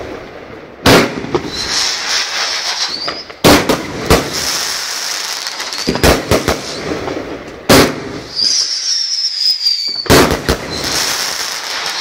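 Aerial fireworks bursting: a string of loud bangs one to two seconds apart, with crackle between them. A high whistle sounds for about a second and a half a little past the middle.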